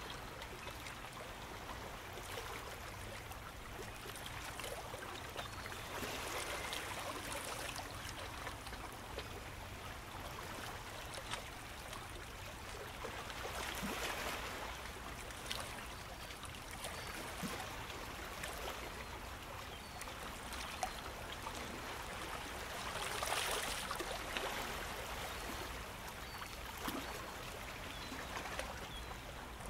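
Ocean surf washing onto a sandy beach: a steady rushing hiss that swells louder three times as waves wash in.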